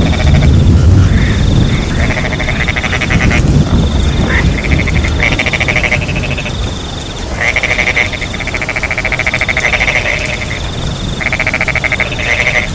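Frogs calling in rapid pulsed trills, several bouts one after another, over a steady high cricket trill and the hiss of rain. A low rumble of thunder fades out in the first couple of seconds.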